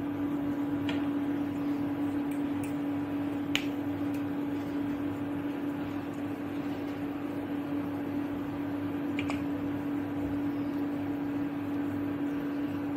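A steady, even machine hum, with a few faint clicks about one, three and a half, and nine seconds in as dough is pressed and handled over a steel bowl.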